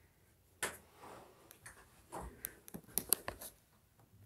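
Faint handling noise and footsteps: scattered light clicks, taps and rustles, busiest in the second half.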